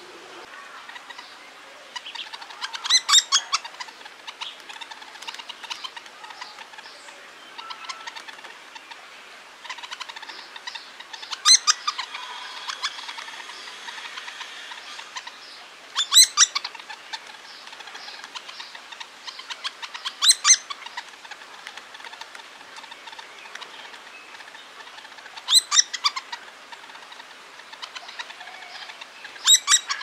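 Hairy woodpeckers calling: short bursts of sharp, quick calls come about six times, with fainter bird chirps in between.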